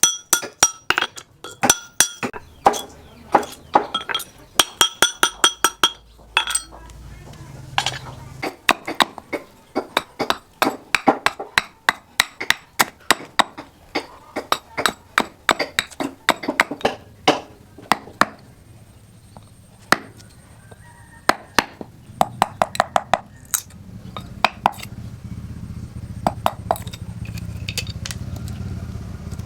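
Steel struck repeatedly with a hammer, two to three sharp ringing clinks a second in an uneven rhythm. A low hum builds up in the second half.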